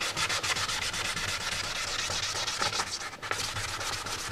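Wet 600-grit sandpaper rubbed by hand over a primed Yamaha FZR1000 fairing panel in quick back-and-forth strokes, a soft wet rasping that eases briefly about three seconds in. This is the final smoothing of the primer before paint.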